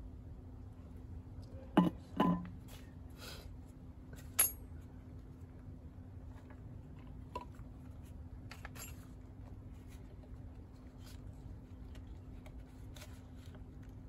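Small handling clicks and knocks of a plastic syringe being filled from an oil can and fitted into a scooter's gear-case filler hole. Two louder knocks come about two seconds in and another about four seconds in, with a few fainter clicks after, over a faint steady hum.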